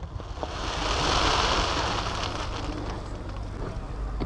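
Hiss of a firework shell's gold trailing stars burning out after the burst, swelling about a second in and slowly fading.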